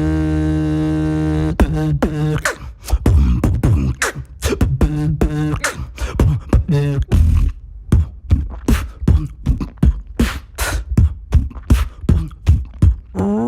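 A beatboxer's mouth and voice: a steady held hum for about the first second and a half, then a fast beatbox rhythm of sharp kick and snare sounds, some with short pitched tones, about two to three strokes a second.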